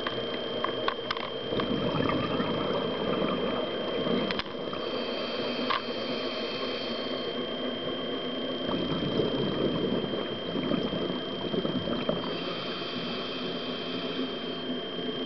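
Scuba diver's regulator underwater: long bubbling exhalations alternating with the hiss of inhalation, in a slow breathing rhythm. A thin steady high tone runs underneath.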